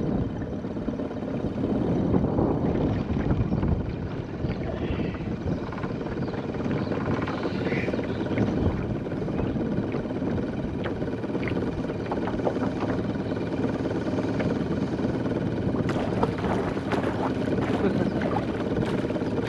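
Small petrol outboard motor on an aluminium boat running steadily at low speed, a continuous low rumble.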